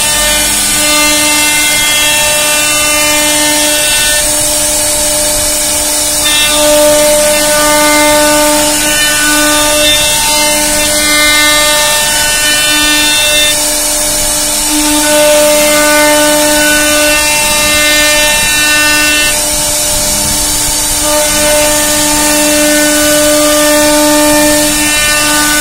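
CNC router spindle running with a steady whine as its bit carves circular rosette grooves into a solid wood panel, over a constant high hiss. The whine fades and comes back every few seconds as the cutting load changes.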